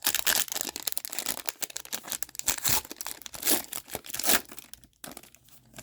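Foil hockey-card pack wrapper crinkling and tearing as it is ripped open and handled, a dense crackle that dies down about five seconds in.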